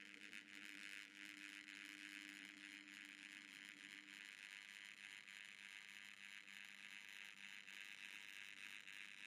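Faint steady whirring and fine rattling of a kinetic sculpture's AC motor and MDF mechanism running, with a low hum that fades about four seconds in.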